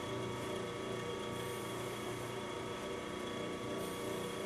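Steady background hum with a constant hiss, unchanging throughout.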